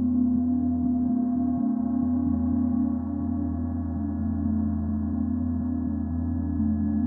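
Paiste symphonic gong played softly with felt mallets, ringing as a steady, sustained wash of many overlapping tones, strongest and deepest in its low range.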